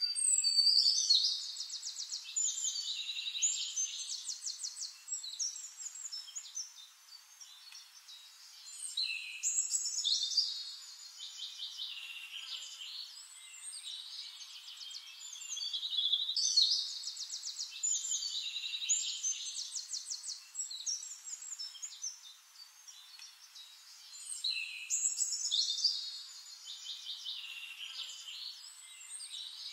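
Bird-like chirping and fast trills, high-pitched, coming in a phrase that starts over about every eight seconds.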